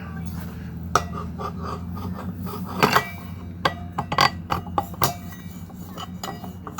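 Metal parts knocking, clinking and scraping as a brake drum is fitted onto a mini bike's wheel hub, in scattered knocks with a cluster between about three and five seconds in. A steady low hum runs underneath.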